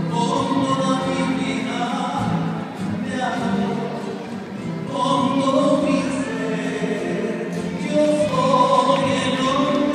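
A rondalla singing in chorus: several voices together in harmony, swelling louder about halfway through.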